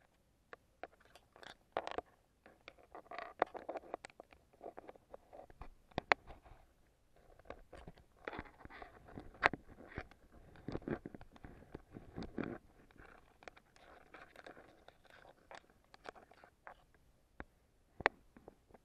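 Irregular sharp clicks, crackles and scrapes picked up underwater, coming in clusters with a few louder knocks around six, nine and eighteen seconds in.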